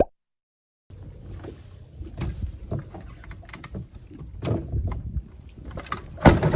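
Scattered knocks and bumps on a small fishing boat's deck as a person moves forward to the bow, over a low rumble of wind on the microphone, with a louder cluster of knocks near the end.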